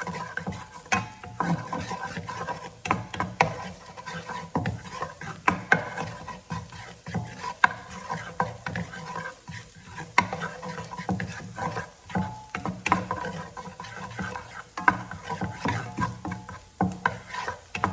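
A cooking utensil stirring chopped garlic in hot oil in a pan, with irregular scrapes and clicks against the pan and a light sizzle of frying.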